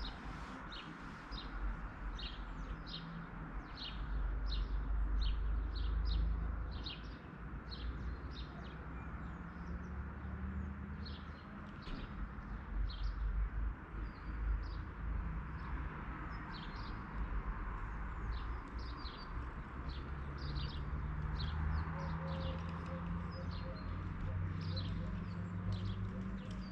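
Small birds chirping: short, sharp chirps repeating one or two a second, over a steady low rumble.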